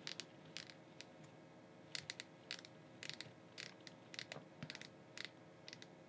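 Faint, irregular small clicks and scrapes from fingers working a clear plastic RJ45 plug on an Ethernet cable, easing the cable back and twisting it so the wire ends sit evenly.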